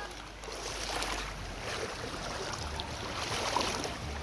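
Stream water flowing, a steady rush with small irregular splashes.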